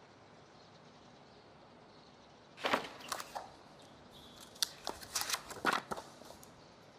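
Pen scratching on a paper pad in short quick strokes, about a second and a half of them near the end, after a brief rustle of the pad being handled a little before the middle.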